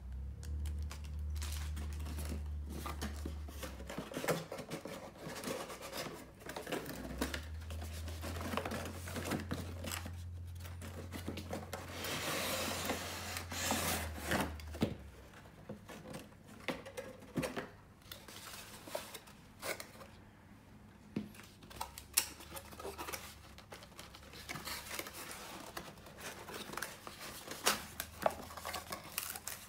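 Unboxing handling noise: a cardboard tray sliding out of its box and cardboard packaging being rubbed and scraped, with scattered light clicks and knocks. The densest stretch of rustling comes about halfway through.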